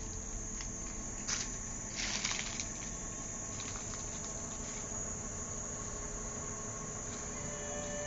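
Steady high-pitched chirring of insects in the trees, with a few short clicks of handling noise about one and two seconds in.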